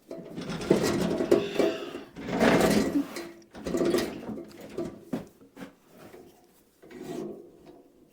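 A shop bandsaw being pulled out from its place: a series of uneven scraping and rattling bursts with a few knocks, loudest in the first three seconds and fading off towards the end.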